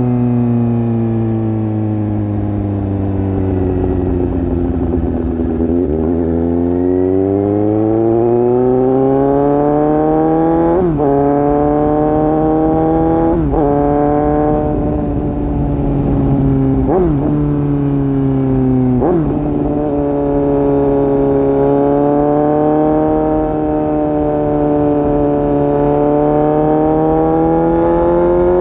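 Suzuki GSX-S750 inline-four engine through an exhaust with its dB killer removed, out on the road. It slows down over the first few seconds, then accelerates through four quick upshifts, each a sudden drop in pitch, before cruising at fairly steady revs that climb slightly near the end.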